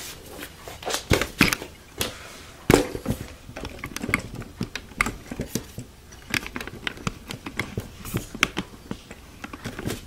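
Handling noise: irregular light clicks, taps and knocks, with a few louder knocks about one and three seconds in.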